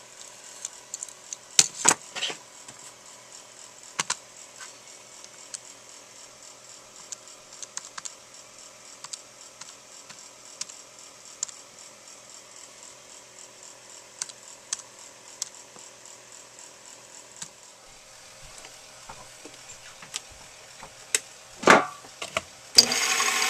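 Scattered small clicks and taps of tools being handled and calculator keys pressed over a faint steady hum; just before the end a small metal lathe's motor switches on and runs.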